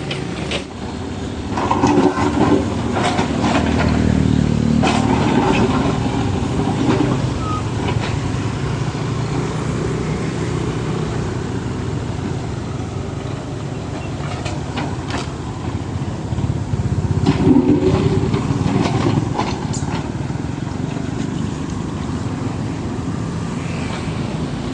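Kubota U50 mini excavator's diesel engine running steadily and revving up twice under hydraulic load, about two seconds in and again about two thirds of the way through, with scattered knocks and clatter.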